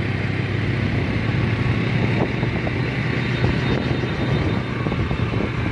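Motorbike running along the road at speed, its engine a steady low hum under wind rushing over the microphone.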